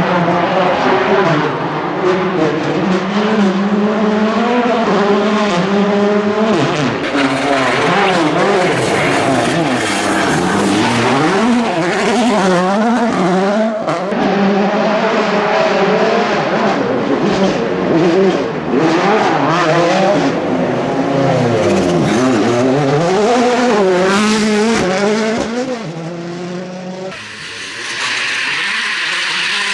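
World Rally Car's 1.6-litre turbocharged four-cylinder engine at full rally pace, revving hard up and down in quick succession through gear changes. Near the end the sound changes abruptly to a quieter, hissier car sound.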